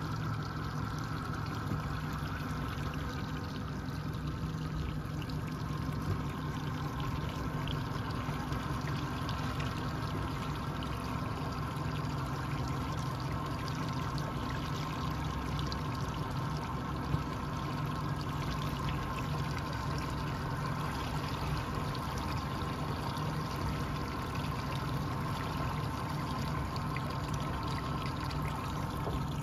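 Boat under way: a steady motor drone with water rushing and splashing along the hull.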